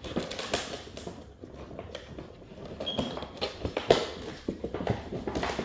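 Irregular clicks, taps and rustling of hands working to pull a smoke alarm out of its plastic and cardboard packaging, with a sharper knock about four seconds in.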